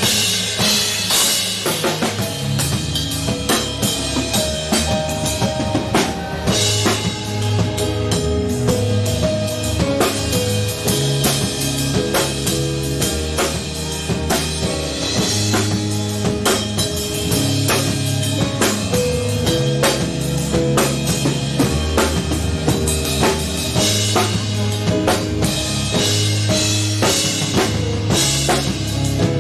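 Live band music with a full drum kit (kick, snare and rimshots) over sustained bass and keyboard chords, playing steadily.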